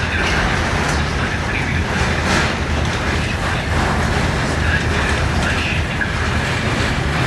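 Tram running on its rails: a steady low rumble, with the wheels knocking and rattling over the track and a few sharper clacks.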